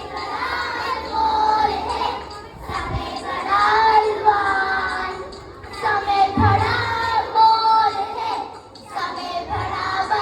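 A group of young children singing a song together, in phrases separated by short breaths.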